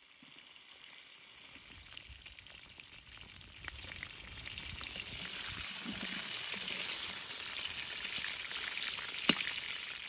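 Potato chunks frying in oil in a large cauldron, a steady sizzle that starts faint and grows louder from about four seconds in, with a metal skimmer stirring them. One sharp click near the end.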